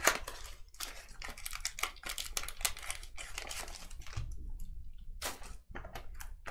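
Foil and plastic trading-card wrapping crinkling and crackling as it is handled, in a quick irregular run of small crackles and clicks.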